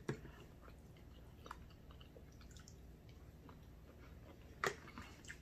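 Quiet eating sounds from a seafood boil: faint chewing with a few soft clicks of fork and crab shell on the plate, the sharpest a little before the end.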